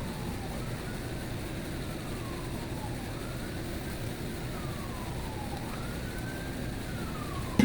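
An emergency vehicle siren wails, rising and falling slowly in pitch about every two seconds, over a steady background noise.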